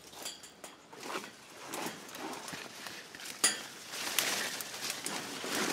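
Footsteps pushing through dense brush: leaves and branches rustling against the microphone, with irregular twig crackles and one sharp crack about three and a half seconds in.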